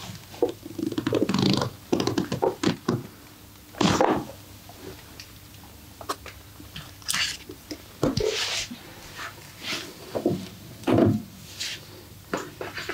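Hands-on massage: a string of irregular sharp slaps and rubbing on skin, mixed with short non-speech vocal sounds, the loudest hits about four seconds in and again near eleven seconds.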